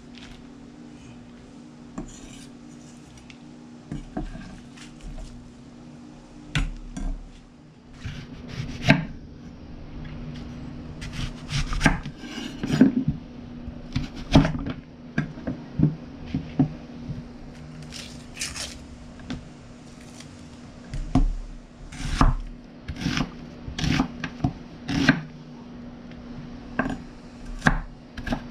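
Kitchen utensils and dishes clattering during food preparation: irregular clicks and knocks, sparse at first and more frequent from about a third of the way in.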